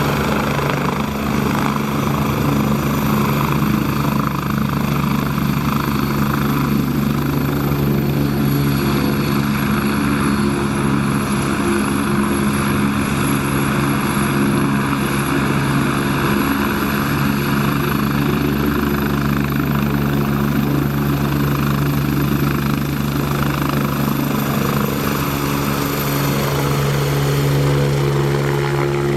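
RC scale Eurocopter EC 135 model helicopter running steadily, its rotor chop and drive whine continuous; the high whine drops a little about a third of the way in and climbs back near the end.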